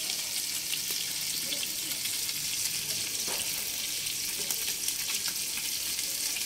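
Fish pieces, rubbed with turmeric and salt, frying in hot oil in a small pan over a wood fire: a steady sizzling hiss with fine crackles.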